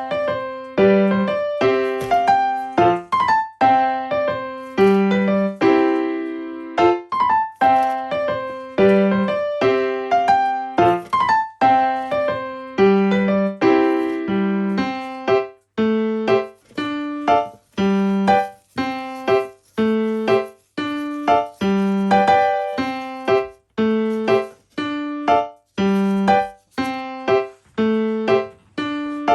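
Background piano music: single notes and chords struck in a steady rhythm, each dying away before the next.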